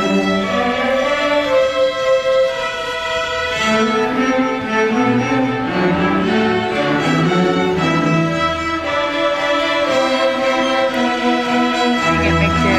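String ensemble music, with violins over cellos playing long, held notes while a lower line moves underneath.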